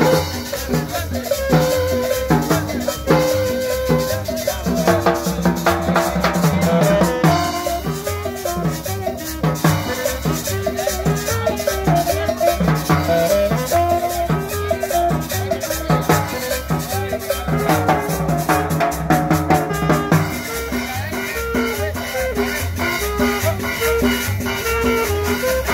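Chorcito, a Salvadoran style of cumbia dance music, playing with a steady beat of drums, maracas and a bass line under a melody.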